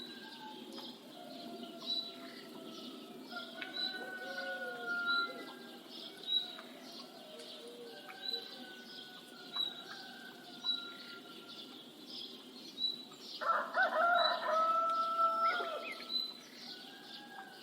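Morning bird ambience: a small bird chirps a high note over and over, about once every second or so, while other birds call. A rooster crows once, for about two seconds, near the end.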